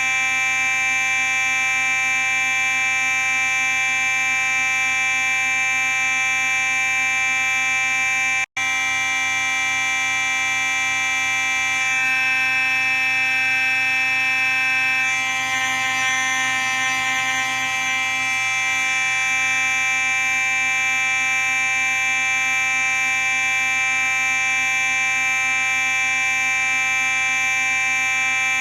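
Simplex 4903-9838 fire alarm sounding a continuous, steady buzzing tone. It cuts out for an instant about eight and a half seconds in, then carries on.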